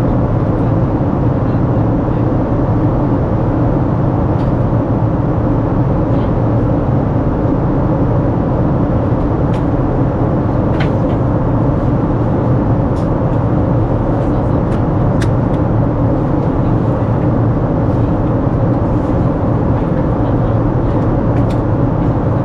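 Boeing 787-9 cabin noise in flight: a steady, loud rumble and rush from the engines and the air streaming past the fuselage, with a few faint ticks.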